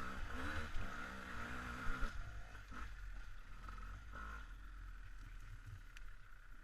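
Off-road motorcycle engine running with its revs rising and falling, then dropping away abruptly about two seconds in, leaving only faint background noise.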